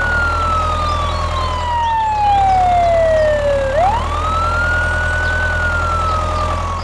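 Ambulance wail siren sound effect. Its pitch falls slowly, jumps back up quickly nearly four seconds in, then falls slowly again, over a low steady engine rumble.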